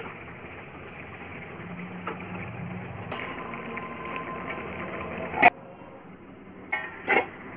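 Fish curry simmering in a steel pan over a gas burner: a steady hiss of flame and cooking. A sharp clack comes about five seconds in, after which it is quieter, with a couple of short clatters near the end.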